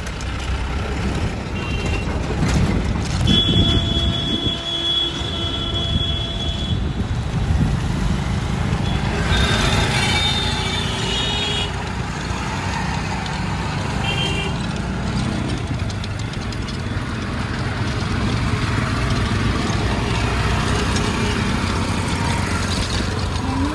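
Busy street traffic: engines running under a continuous rumble, with vehicle horns sounding several times. There is a long honk a few seconds in, more honks around ten seconds in, and a shorter one a few seconds later.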